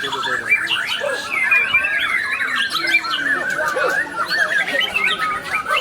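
White-rumped shamas (murai batu) singing: a dense run of quick, overlapping whistles, chirps and trills.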